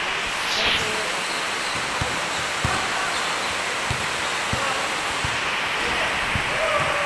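Steady hiss of rain on a corrugated metal roof, with basketballs bouncing on a concrete court now and then as dull thuds.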